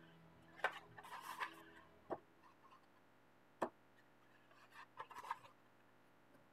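Paper pages of a coloring book being turned and pressed flat by hand: a few faint paper rustles and light sharp taps, with a clear tap in the middle.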